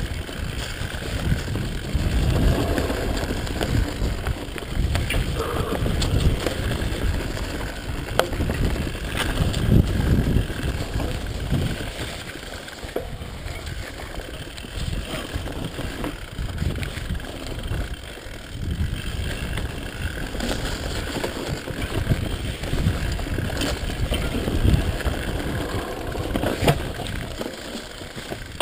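Mountain bike riding down a rough dirt singletrack: tyre rumble and the bike rattling over bumps, with wind buffeting the microphone and scattered sharp knocks.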